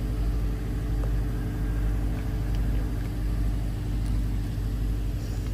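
A ship's engine running steadily at idle: a low, even hum that holds level.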